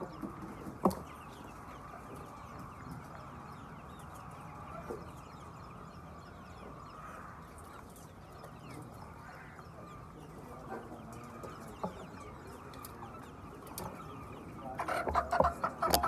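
A large flock of white laying hens clucking and calling steadily, many birds at once, with a louder burst of calls near the end.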